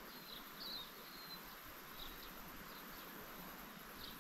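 Quiet streamside ambience: a soft steady hiss with faint, scattered small-bird chirps, several short high calls spread through the few seconds.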